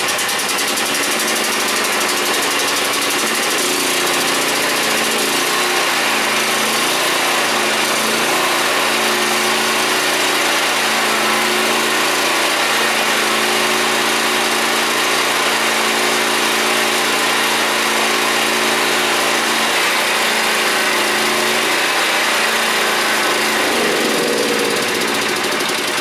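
Predator 8750 inverter generator's gasoline engine running steadily just after its first start, with the choke pulled out and the economy mode switched off. Its pitch wavers a little now and then before settling again.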